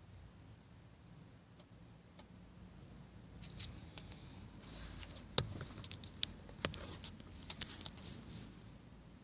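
Irregular sharp clicks and light crackling from a 2005 Ford Fiesta Mk6, bunched between about three and a half and eight and a half seconds in, over a faint low hum. It is a clicking the car has only recently started making, and its cause is unknown to the owner.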